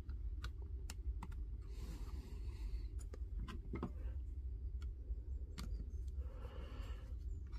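Faint irregular clicks and light scrapes as a tiny screw is fingered into place in a laser level's plastic housing and then driven with a small screwdriver. There is a short scraping stretch near the end.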